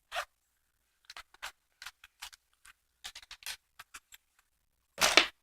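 Hands handling small items from a survival wallet: an irregular string of light clicks and rustles, with one louder rustle about five seconds in.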